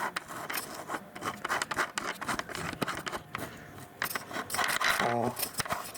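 Hands fiddling with a camcorder and a small clip-on LED video light close to the camcorder's microphone: irregular plastic clicks, scrapes and rubbing.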